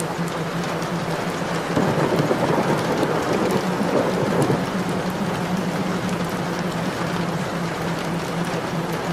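Steady rain falling, with a roll of thunder swelling about two seconds in and fading after a few seconds.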